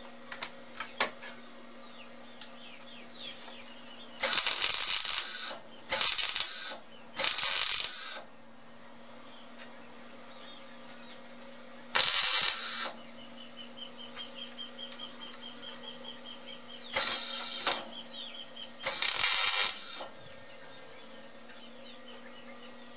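MIG welder laying short stitch welds on a steel car muffler shell: six crackling bursts of about a second each, three close together early on the way and three spaced further apart, with a steady low hum between them.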